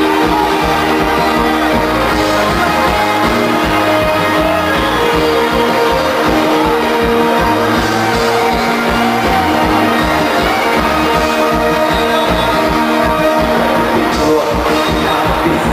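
Live axé band playing loudly, with electric guitar, bass, drums and hand percussion.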